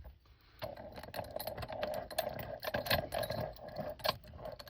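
Metal keys jangling and clicking against a small Yale padlock as the key is fitted: a quick run of small metallic clicks and rattles, starting about half a second in.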